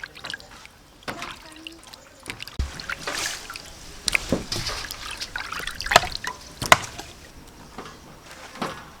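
Water splashing and dribbling, with a few sharp knocks in between, the loudest about six and seven seconds in.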